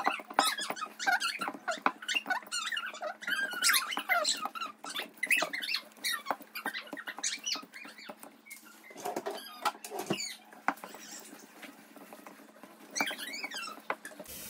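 Sticky wheat-flour slime dough squelching, with skin squeaking on glass, as hands knead it against the sides of a glass bowl. It is a busy run of short high squeaks and squishes that thins out about halfway through and picks up again near the end.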